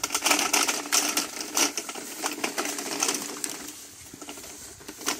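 Coil of black poly water pipe being rolled by hand over dry grass, its loops rattling and clicking against each other with a rapid, irregular clatter that eases off near the end.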